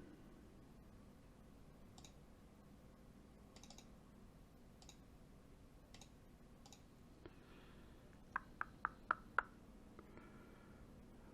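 Computer mouse clicking in a quiet room: a few faint scattered clicks, then a quick run of five sharper clicks about eight seconds in.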